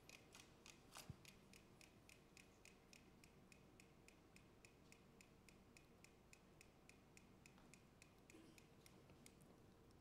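Mechanical pendulum metronomes ticking faintly together in one even beat, about three ticks a second: they have fallen into step, coupled through the shared board they stand on. A louder knock comes about a second in.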